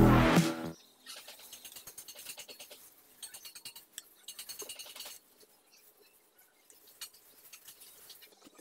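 Background music cuts out in the first second. Then a knife cuts through a block of soft mozzarella on a ceramic plate in faint, quick runs of clicking, scraping strokes, with a few single clicks near the end.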